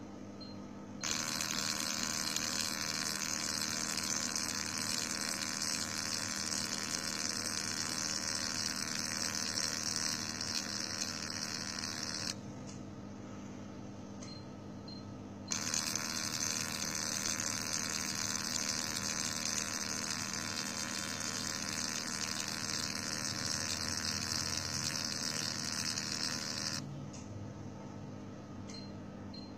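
Fractional CO2 laser machine running with a steady hum under a loud, even hiss. The hiss switches on about a second in, cuts off suddenly for about three seconds near the middle, comes back, and stops shortly before the end.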